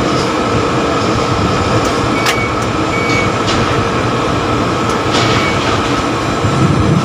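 Steady rumbling, rattling mechanical noise inside a tower crane cab while the crane is worked from the joystick controls, with a few faint short beeps.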